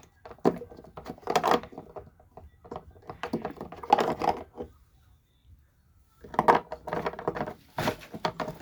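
Water jars being handled and set down, a run of knocks and clatter. It comes in two stretches, with a pause of about a second and a half near the middle.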